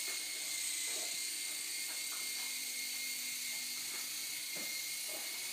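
Air Hogs Fly Crane toy remote-control helicopter in flight: its small electric rotor motors give a steady high-pitched whine. Its battery is almost dead.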